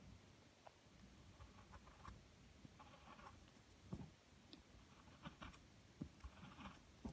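Faint scratching of a wooden pencil drawing on paper in short strokes, with a few soft knocks between the strokes.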